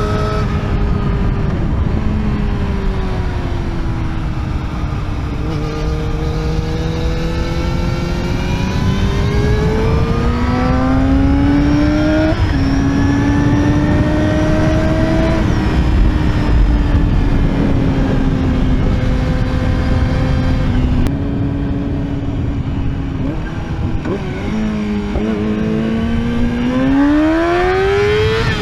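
Yamaha YZF-R6's inline-four engine at speed: the revs sag, then climb, and drop sharply about twelve seconds in at an upshift. They hold steady for a while, fall with a few quick blips after twenty seconds, then climb hard again near the end. Heavy wind rumble on the microphone lies under it.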